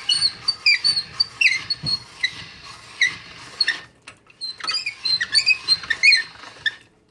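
Hand-cranked chrome pasta machine squeaking over and over as its crank turns and the rollers press a sheet of dough. The squeaks come in two runs, with a short break about four seconds in.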